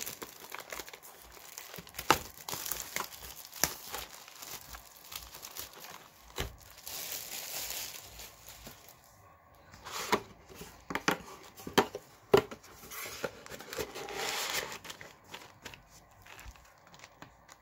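Plastic shrink wrap being slit and torn off a cardboard booster box, crinkling and crackling in irregular bursts with sharp clicks. Near the end the cardboard box lid is opened.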